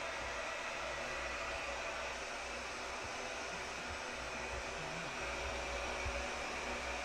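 Steady hiss of television static, the 'snow' of a screen with no signal, over a low rumble.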